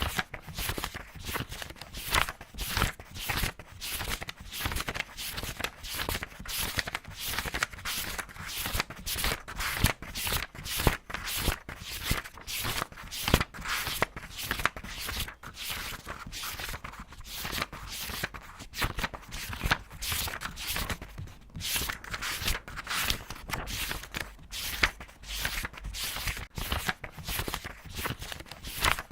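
Paper pages of a book being turned quickly one after another, a rapid run of short swishes and flaps, several a second.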